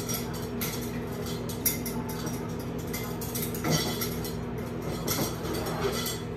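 Utensils and dishes clinking and rattling as someone rummages among them on a kitchen counter: a string of light clicks, with louder knocks about two and four seconds in.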